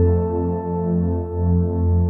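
Calm ambient background music: sustained, held tones over slow, gently pulsing low notes.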